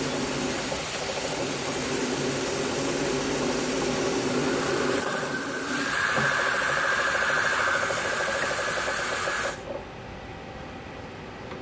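Drill press running, its center drill cutting into a metal part from about five seconds in, which adds a higher, steady tone over the motor's hum and hiss. The sound drops sharply a little before the end.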